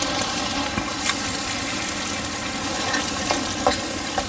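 Freshly added chopped tomatoes sizzling steadily in a frying pan of onion and peppers in oil, with a few light knocks of a wooden spoon against the pan as they are stirred in.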